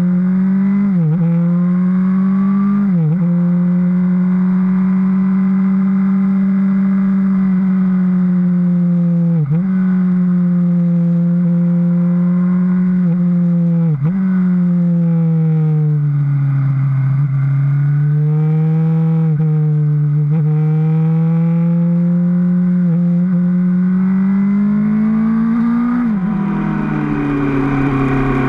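Suzuki GSR750 inline-four motorcycle engine running under way at steady mid revs. Its pitch dips sharply and recovers about four times, then sags, climbs slowly for several seconds and drops near the end.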